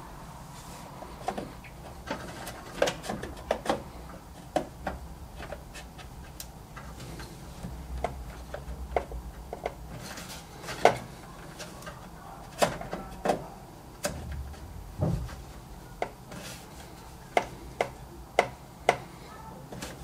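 Irregular small clicks and taps as a Seagate FireCuda M.2 NVMe SSD is handled, seated in its motherboard slot and pressed down onto the screw standoff. The sharpest clicks fall about eleven seconds in and near the end.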